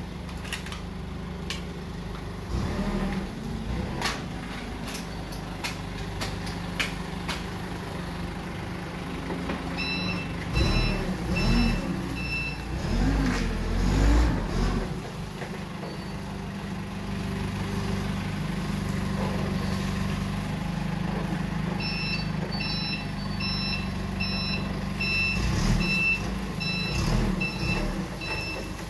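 Forklift engine running steadily, its revs rising and falling as it lifts and manoeuvres a load, with a reversing beeper beeping about twice a second in two stretches, around ten seconds in and again from about twenty-two seconds on. Several sharp knocks of wooden pallets being handled come in the first few seconds.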